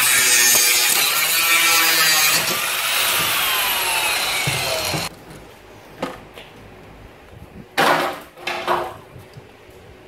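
Small angle grinder cutting through a plastic grille, its pitch falling over the last couple of seconds before it cuts off suddenly about five seconds in. Then a few short plastic clatters as the cut-off grille section is handled, the loudest near the end.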